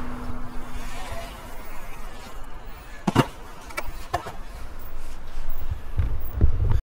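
Inline skate wheels rolling and scraping on smooth concrete under a low rumble, with a few sharp clacks of the skates about three to four seconds in and heavier knocks near the end, before the sound cuts off abruptly.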